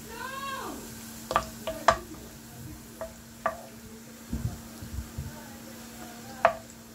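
Slotted metal spatula and wooden spoon scraping and knocking against a non-stick frying pan as fried onions are lifted out of the hot oil, with a faint sizzle of frying. There are a few sharp clicks against the pan and a short squeak that rises and falls in the first second, all over a steady low hum.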